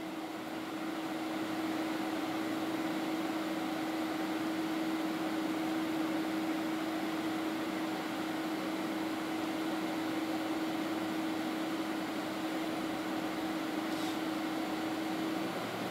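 Cabin noise inside a Boeing 767-300ER taxiing with its General Electric CF6 turbofans at idle: a steady rushing hum with a steady droning tone. Near the end the drone shifts higher in pitch.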